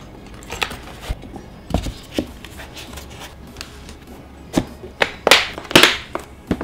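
A dense foam carry case being handled: scattered light taps and knocks, then foam scraping and rubbing against foam as the lid is fitted back on, ending with a knock.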